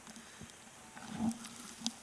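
Fingers picking at and crumbling damp clay soil, faint, with a short low sound about a second in and a sharp click near the end.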